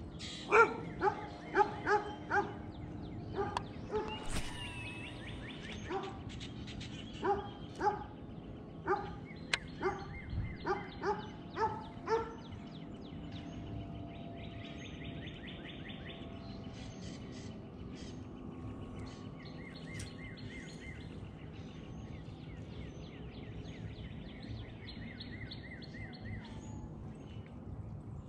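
A dog barking repeatedly in short, irregular runs for about the first twelve seconds, then stopping. After that, birds keep up high, repeated chirps and trills.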